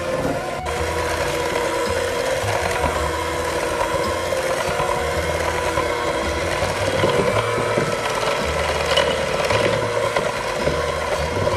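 Electric hand mixer running steadily with a constant motor whine, its twin beaters churning through wet pumpkin cookie batter in a glass bowl.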